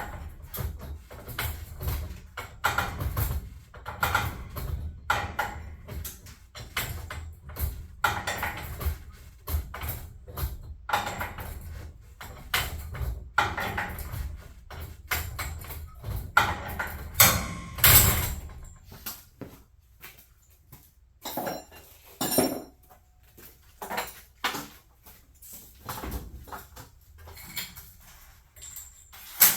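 Irregular knocks and clinks, dense through the first two-thirds with a low rumble underneath, then sparser, ending with one sharp loud knock.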